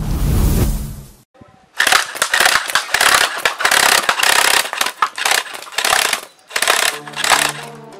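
Homemade full-auto BB gun fed from a plastic soda-bottle air reservoir, firing two long rapid strings of shots. The first begins about two seconds in and runs some four seconds, and the second is shorter. Before it comes the tail of a low intro boom, and music with steady notes comes in near the end.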